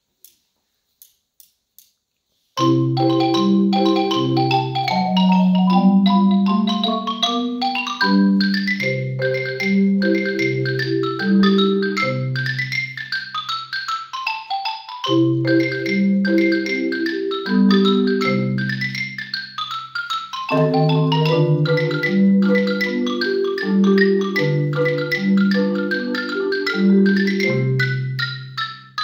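Solo Yamaha concert marimba played with mallets, starting about two and a half seconds in: long low notes ring under quick higher runs, in phrases that pause briefly and resume a few times.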